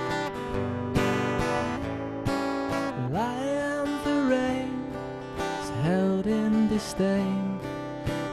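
Acoustic guitar strummed in a steady rhythm, with a man's voice starting to sing over it about three seconds in.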